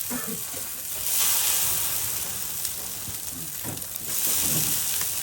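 Water poured onto a burning, lighter-fluid-soaked coffee maker, hissing and sizzling. The hiss swells loudly twice, about a second in and again around four seconds in.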